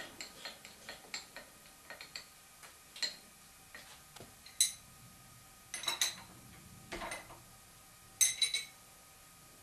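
Light metallic ticks and clinks of metal on metal, closely spaced at first and then thinning out. A few louder clinks follow in the second half, with a quick cluster of three near the end, as a hand works around the stopped drill and the steel workpiece on the milling machine.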